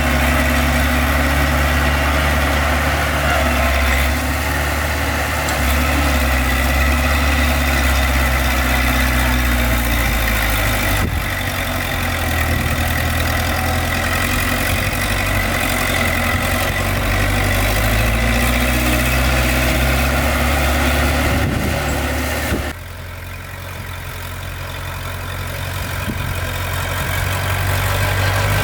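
Heavy diesel engine of a dump truck or bulldozer running steadily with a deep hum. Near the end the sound drops suddenly, then builds back up over a few seconds.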